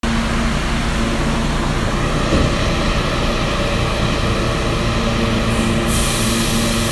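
New York City subway R train standing at the platform, its onboard equipment humming steadily over platform noise. There is a brief knock about two seconds in, and a hiss comes in near the end.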